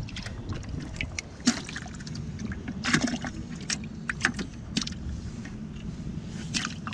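Water splashing and trickling in a plastic bucket of freshly caught yellow perch, in irregular short splashes, over a steady low rumble.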